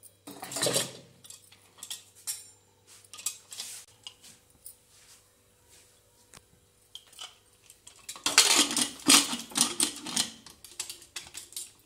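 Aluminium pressure cooker clattering and clicking as it is set on the gas burner and its lid fitted and clamped shut. The loudest run of metal clatter comes about eight seconds in, as the lid goes on.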